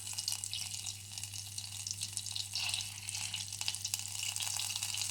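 Olive oil being poured into butter melting in a pan, with a steady fine sizzling and crackling. A low steady hum runs underneath.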